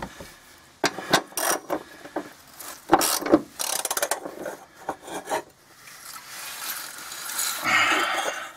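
Socket ratchet clicking in short runs, with a few sharp metal knocks, as a running-board bracket bolt is tightened.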